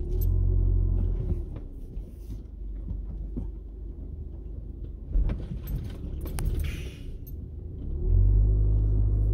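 Car engine, heard from inside the cabin, pulling the car slowly over a steep culvert hump on a rough dirt road. A deep rumble swells at the start and again near the end, with knocks and rattles from the car in between.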